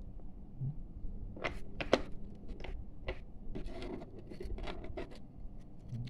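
Plastic clicks and handling knocks as a side brush is pressed and clipped onto its square hub on the underside of a robot vacuum, the sharpest click about two seconds in.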